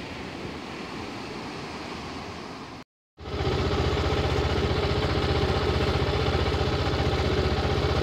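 Riding noise from a moving motorcycle: wind and road rumble with the engine underneath, which cuts off about three seconds in. After a brief gap a motorcycle engine idles steadily and louder.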